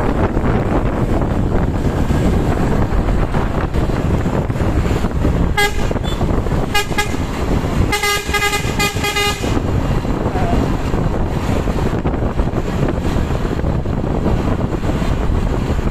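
Bus telolet horn, a multi-note musical air horn: two short toots about the middle, then a quick run of notes lasting about a second and a half. Underneath is steady wind on the microphone and traffic noise.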